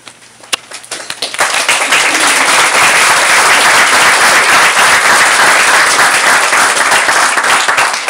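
Audience applauding. A few scattered claps start it, full applause sets in about a second and a half in, and it thins back to separate claps near the end.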